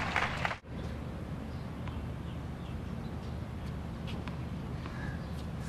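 Tennis rally on an outdoor hard court: faint racquet strikes on the ball about once a second over a steady low outdoor rumble. Crowd applause cuts off suddenly in the first half-second.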